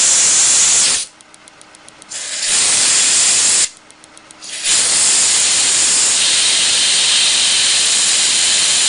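Compressed air hissing loudly from a blow-gun nozzle aimed over a sparking ball spark plug, in three blasts: it cuts off about a second in and again around four seconds in, each time for about a second. In those pauses the plug's spark is heard as a faint, rapid ticking, about eight ticks a second.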